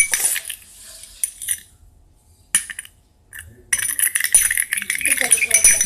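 A utensil clinking and scraping against a container as the slime mixture is stirred. It comes in a sharp burst at the start and a short one about two and a half seconds in, then runs as quick, continuous scraping strokes from about four seconds in.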